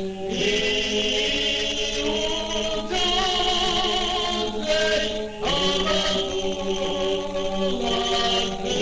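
Abkhazian folk ensemble singing in several parts over a steady held drone. The phrase breaks briefly just after the start and again about five and a half seconds in.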